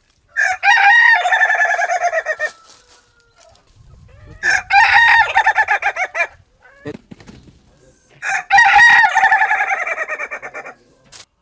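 Rooster crowing three times, each crow about two seconds long with short gaps between.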